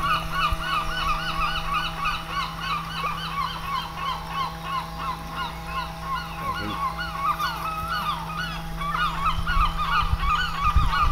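Geese honking, a rapid run of repeated calls that overlap as several birds join in, over a steady low hum.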